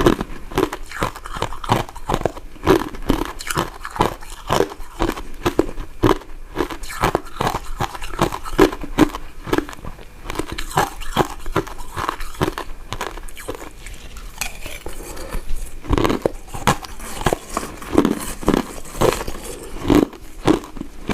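Close-miked chewing and biting of soft, chewy powder-coated sweets: steady wet mouth noises and sticky smacks, several a second.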